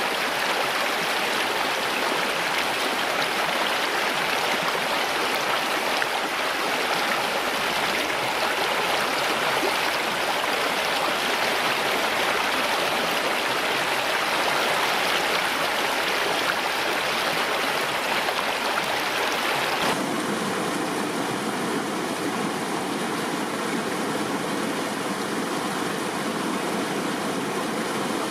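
River water rushing and flowing steadily. About twenty seconds in the sound changes abruptly to a slightly different stretch of running water, with a faint steady whine.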